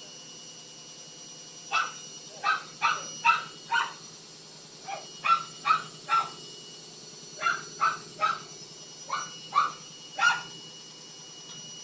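A dog barking repeatedly, about fifteen short barks in loose groups of two to four, over a steady low hum.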